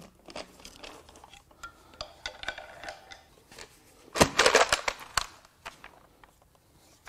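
Valve cover on a Cummins 5.0L turbo diesel V8 being pried and pulled off the cylinder head: small scrapes and clicks of the pry bar, then a loud crackling rattle lasting about a second, a little past halfway, as the cover breaks free and lifts off.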